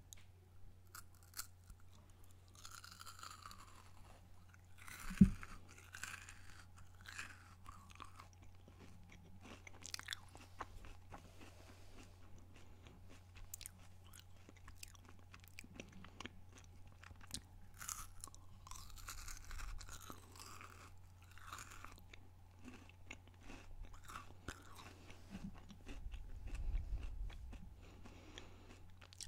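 Close-miked biting and chewing of a chocolate-covered Kit Kat wafer bar: scattered small crunches and mouth clicks. One loud knock comes about five seconds in, over a faint steady low hum.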